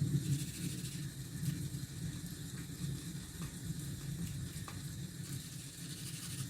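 Steady rain hiss over a low, steady rumble, with a few faint ticks.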